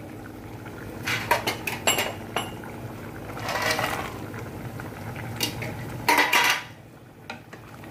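A bowl and spoon clinking and scraping against a kadai as makhana (fox nuts) are tipped into a simmering curry, a few sharp clicks and a louder scrape about six seconds in.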